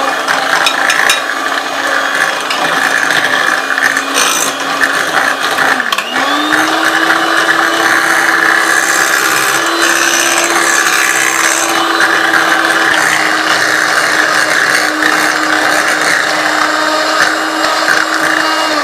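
Electric hand mixer running, its twin beaters whisking a runny cream-cheese filling in a bowl. The steady motor whine dips about six seconds in, then settles at a slightly higher pitch.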